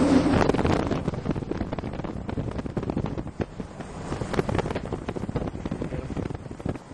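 Gusty wind buffeting the microphone, crackling irregularly and easing off toward the end.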